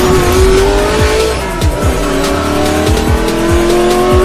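Intro sound effect of a car engine revving up, its pitch rising, falling back about one and a half seconds in, then climbing again, over electronic music with a steady kick-drum beat.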